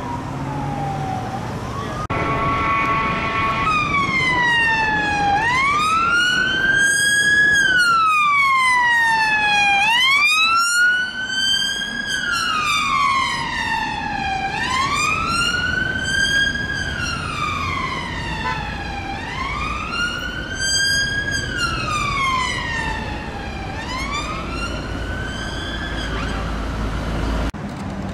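Police siren on wail, the pitch rising and falling slowly about every four to five seconds, with a brief steady tone about two seconds in, over road traffic noise. The siren cuts off abruptly just before the end.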